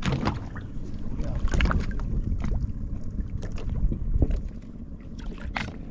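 Fishing boat at sea: a steady low rumble with scattered knocks and splashes, which ease off somewhat near the end.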